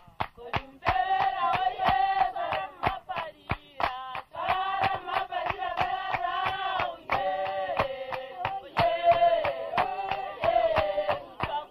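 A group of voices singing a chant in held notes over steady hand clapping, about four claps a second.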